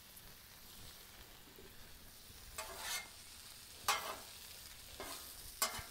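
Diced potatoes and onion sizzling faintly on a Blackstone steel flat-top griddle. A metal spatula scrapes under and turns them three times, about two and a half, four and five and a half seconds in.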